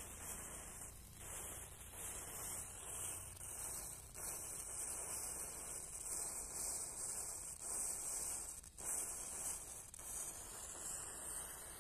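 Faint, steady hissing of a row of matchsticks burning, the flame catching one match head after the next.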